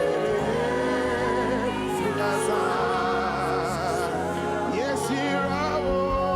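Slow worship music: sustained chords held under a singing voice drawing out long, wavering notes.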